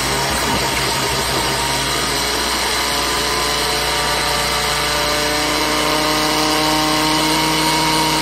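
Countertop blender motor running, grinding rolled oats into oat flour: a loud, steady motor whine with the grinding of the oats, its pitch creeping slightly upward as it runs.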